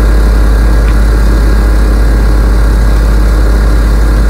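Loud, steady diesel engine drone with a heavy deep rumble, heard aboard a tugboat.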